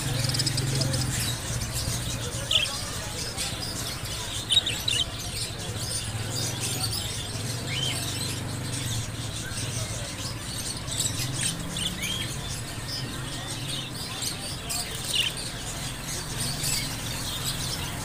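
Caged budgerigars chirping: many short, high chirps scattered throughout, over a steady low hum and background murmur.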